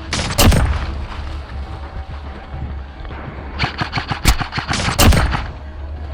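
Airsoft gunfire in short bursts: a string of sharp cracks just after the start, then a rapid run of shots past the middle and a few more near the end, over a steady low hum.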